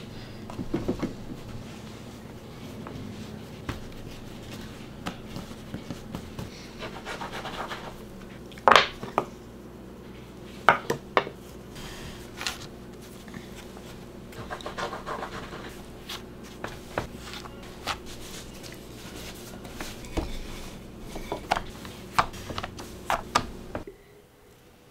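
Handling sounds while cutting English muffin dough: a round cutter pressed through the dough and scraping and rubbing on a floured wooden board, with scattered sharp knocks, the loudest about nine and eleven seconds in. A steady low hum runs underneath and cuts off near the end.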